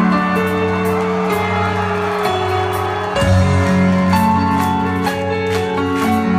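Rock band playing live on electric guitar, bass guitar and drum kit. Sustained chords change every second or so over steady cymbal hits, and the band comes in fuller and louder about three seconds in.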